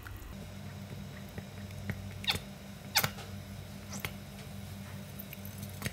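Plastic squeeze bottle of sweet soy sauce being squeezed, its nozzle giving a few short squeaky sputters, about two, three and four seconds in, as air and sauce spurt out. A steady low hum runs underneath.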